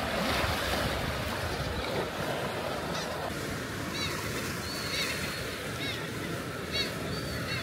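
Sea surf washing steadily on a rocky shore, with seabirds giving several short, high calls over it.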